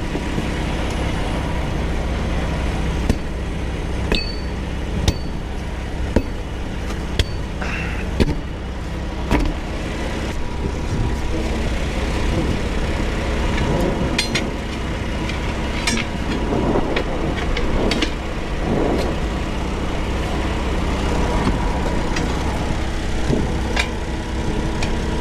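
Truck engine idling steadily during a roadside tyre change, with sharp metallic clanks and knocks from the tyre work, about one a second for a few seconds early and scattered later.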